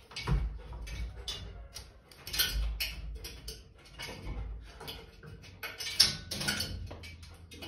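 A dog's claws and paws clicking and knocking irregularly on the rungs of a metal ladder as it climbs, with a sharper knock about six seconds in.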